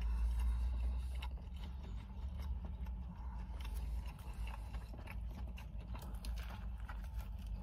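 Close-up chewing of a crispy-coated chicken wrap: irregular soft crunches and mouth clicks, with another bite taken near the end, over a steady low rumble.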